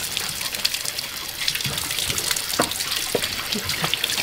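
Water running from a garden hose over a wet puppy, splashing steadily onto the concrete.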